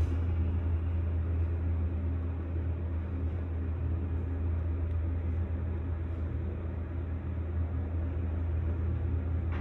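Schindler HYpress hydraulic passenger elevator travelling up, heard from inside the car as a steady low hum.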